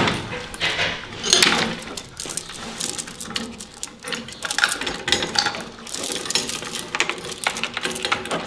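Metal hand tools and hardware clinking and clicking in quick, irregular taps, the sound of work with spanners, nuts and washers on a car's engine mounting.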